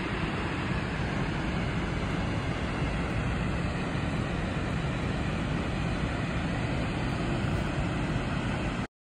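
Steady rush of water from the Upper Tahquamenon Falls, a continuous low roar that cuts off abruptly near the end.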